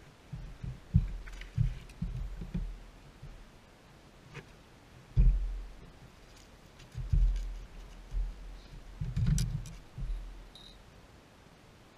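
Irregular low thumps and knocks from an angler stepping, kneeling and shifting on a bass boat's front deck, carried through the hull to the deck-mounted camera, with a few light clicks from handling a landing net.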